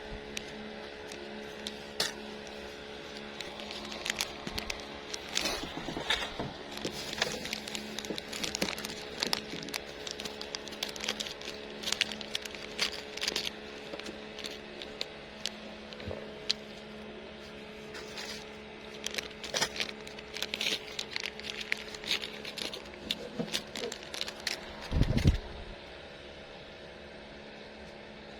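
Irregular clicks, taps and rattles of fishing gear being handled, over a steady low hum, with one low thump near the end.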